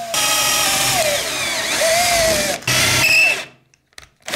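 Cordless drill drilling through a thin metal strap into wood, boring a pilot hole with a thinner bit. The motor whine wavers up and down in pitch as the load changes. It stops briefly, runs again in a short burst, then cuts off about a second before the end.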